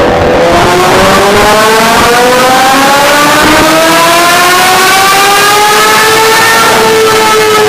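Honda CBR1000RR-R SP inline-four engine on a dyno pull, its pitch climbing steadily for about six seconds as the revs build, then levelling off and easing slightly near the end.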